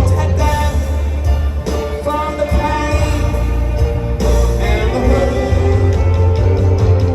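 Rock music with a singer over a band with guitar and heavy bass.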